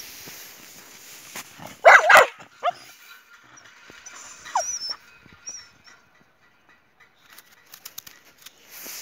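A dog gives one loud, sharp bark about two seconds in, then two short whines, one shortly after and another over a second later.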